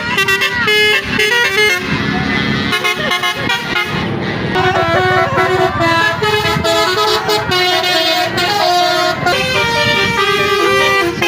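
Indonesian bus telolet horn, a multi-tone air horn, playing a melody of short notes that step from pitch to pitch.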